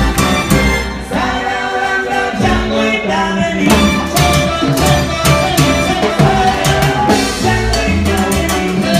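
Live salsa band playing, with percussion hits keeping the rhythm and a male lead singer on a hand microphone.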